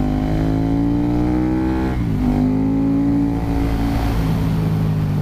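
KTM 1290 Super Duke R's V-twin engine pulling through a bend, heard from the rider's helmet. The revs climb slowly, dip sharply about two seconds in, then build again and hold steady.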